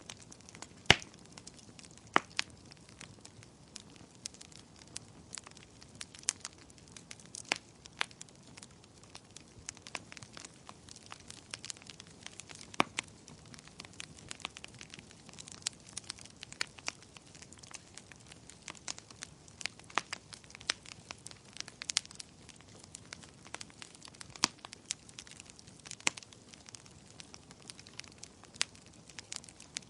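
Wood fire in a fireplace crackling, with irregular sharp pops and snaps over a soft steady hiss.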